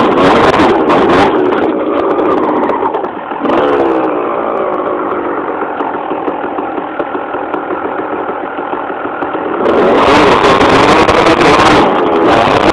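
Enduro motorcycle engine heard from on board while riding a rough trail, revving up and down, with a sharp rise in revs about three and a half seconds in. Knocks and wind on the microphone sit over it at the start and again from about ten seconds in; in between the engine runs steadier and duller.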